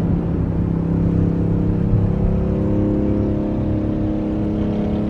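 Steady engine drone and low road rumble heard from inside a car cruising at highway speed, the engine pitch holding level with slight slow shifts.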